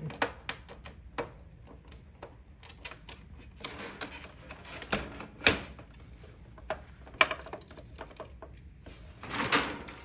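Hard plastic parts of a SNOO bassinet's base being handled: irregular clicks and taps, with a longer scraping sound near the end.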